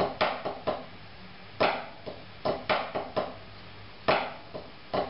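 Wooden drumsticks tapping on a rubber practice pad, playing a short rudimental snare figure with flams and accents: two eighth notes, the first flammed, then four sixteenths. The figure is played over and over as a series of sharp taps in small groups.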